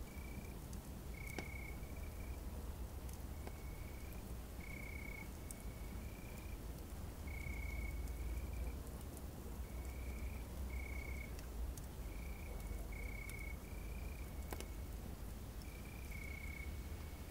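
Night campsite ambience: a chorus of short, high chirping calls at one pitch, repeating every second or so, with a few sharp campfire crackles over a steady low rumble.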